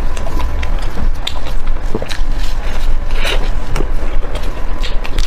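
Someone biting and chewing food: irregular crunchy clicks, a few a second, over a steady low rumble.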